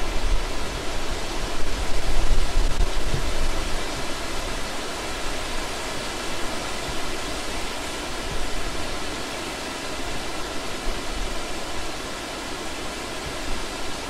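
Forest stream water flowing, a steady even rush with a low rumble that swells in the first few seconds.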